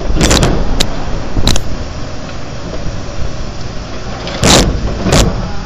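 MJE JP6 rear-loading garbage compactor running its packing cycle: the hydraulic packer blade sweeps down through the hopper over the steady running of the truck's engine and hydraulics. Several loud crunches and cracks as the bottles and rubbish are crushed, the loudest two near the end.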